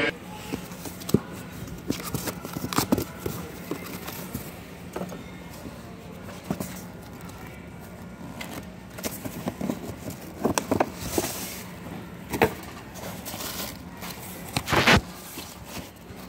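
Cardboard shipping cases and the packaged model kits inside being handled and rummaged through in a wire shopping cart: irregular rustles, scrapes, knocks and clicks, a few of them sharper and louder, over a steady low hum.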